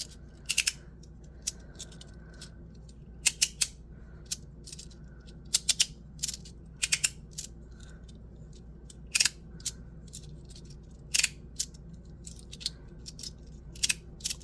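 3D-printed magnetic slider fidget toy being slid back and forth, its plastic halves snapping into place with sharp clicks at irregular intervals, often two in quick succession. The magnets that pull it into place are, to its owner, on the weak side.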